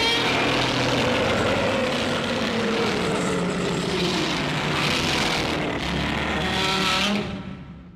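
A loud, rough film sound effect with several tones slowly falling in pitch under a dense noisy rush, fading out near the end.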